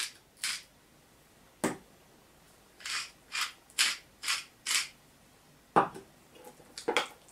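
Small glass spice jar shaken over a bowl to season it: five quick rattling shakes, about two a second, after a single sharp click, with two more knocks near the end.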